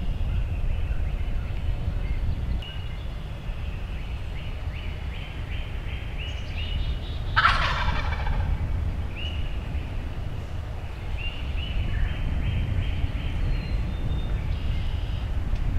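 A wild turkey gobbler gobbles once, loudly, about halfway through, a rapid falling rattle lasting under a second. Runs of short, evenly spaced yelping notes come before and after it, over a steady low rumble.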